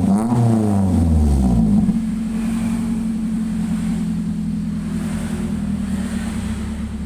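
Toyota Avanza 1.3 four-cylinder engine through an aftermarket 4-1 header exhaust, with the stock middle silencer replaced by straight pipe. It is blipped with quick throttle revs that rise and fall in pitch, then settles about two seconds in to a steady idle.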